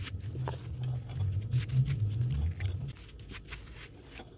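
Hands working with cardboard, fabric and a hot glue gun make scattered light clicks and crinkles over a low rumble. The rumble dies away about three seconds in.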